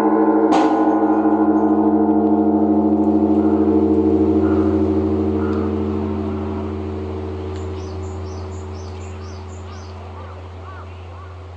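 Large bronze Japanese temple bell (bonshō) rung as the evening bell, struck once with a wooden beam about half a second in while the previous stroke is still ringing. Its deep hum and ringing tones fade slowly, with birds chirping faintly near the end.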